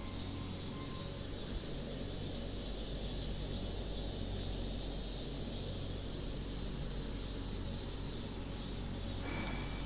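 Factory machinery running with a steady hum and a constant high whine; a higher tone joins near the end.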